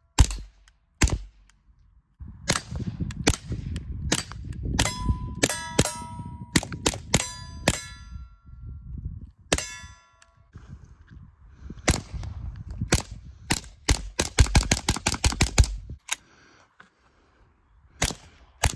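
Suppressed Taurus TX22 Compact .22 LR pistol firing shot after shot at an uneven pace, with a fast string of shots a little after the middle. Several shots are followed by a short metallic ring.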